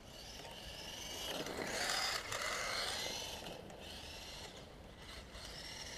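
Traxxas 1/16 rally RC car's electric motor whining as it is driven on asphalt, the pitch rising and falling as it speeds up and slows. Loudest about two seconds in, with weaker swells later.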